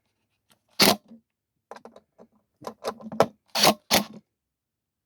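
A run of short, sharp clicks and knocks with quiet gaps between them, the loudest about a second in and two more after the middle: tools and metal parts of a furnace inducer motor being handled during reassembly.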